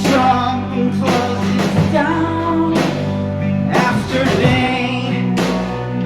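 A rock band playing a song: a sung vocal over guitar, bass, synthesizer and drums.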